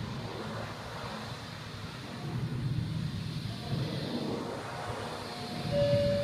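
Water rushing steadily onto a model of the Titanic, a continuous low rumbling wash that swells in the middle. A short steady tone sounds near the end.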